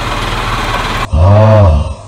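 Car engine running with a plastic trash bag stretched over its exhaust pipe. About a second in, it gives way to a louder drawn-out tone that rises and then falls in pitch for under a second, the loudest sound here.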